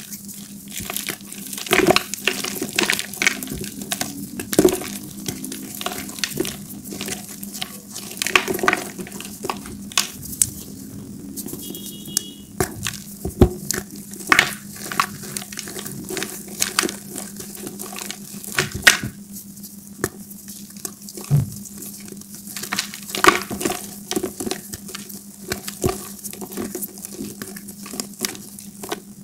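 Pressed gym chalk balls being squeezed and crushed by hand, crunching and crumbling into powder in irregular crackly bursts, over a faint steady hum.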